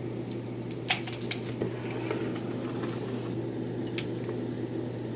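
Indoor room tone with a steady low hum and a few scattered small clicks and taps.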